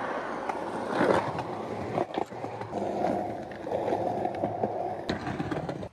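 Skateboard wheels rolling on street asphalt in a steady rumble, with a few sharp clacks along the way.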